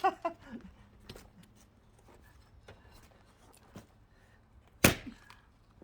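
A single sharp wooden thunk near the end, with faint knocks and rustles of handling firewood before it.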